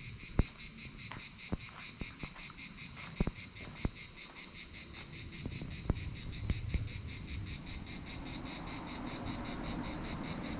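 A chorus of summer insects chirring in a high, fast, even pulse, several beats a second. A few faint knocks and clicks sound over it.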